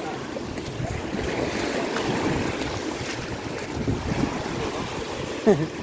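Sea surf washing in over the shallows, with wind buffeting the microphone. Near the end a short, loud cry falls in pitch.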